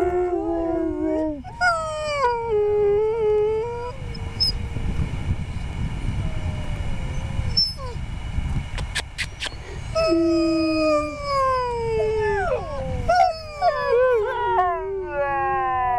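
Several harnessed sled huskies howling and whining together in overlapping calls that slide up and down in pitch. This is the excited calling typical of sled dogs waiting in harness to run. The howling pauses for a few seconds in the middle, leaving a low rumble, and then comes back in stronger, with more voices piling up near the end.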